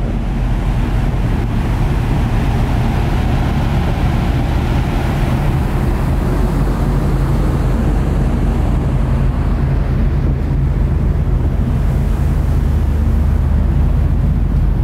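A ferry's engines running with a steady low hum, under wind blowing across the microphone on the open deck.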